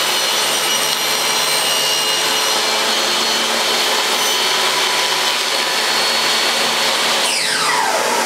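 Table saw running as a pine board is crosscut on a sled. About seven seconds in, the motor's whine falls steeply in pitch as the blade winds down after switch-off.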